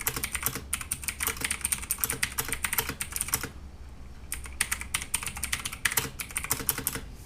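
Fast typing on a Drevo 84-key mechanical keyboard with Outemu blue clicky switches, a rapid run of sharp key clicks. The typing stops for about a second halfway through, then resumes.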